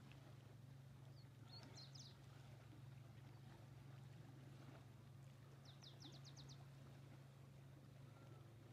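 Near silence outdoors: a small bird gives two short, rapid trills of high chirps, about two seconds in and again about six seconds in, over a faint steady low hum.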